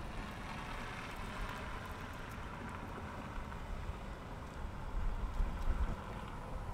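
Outdoor traffic ambience: a vehicle's tyre noise swelling and then slowly fading, with wind rumbling on the microphone, gustier about five seconds in.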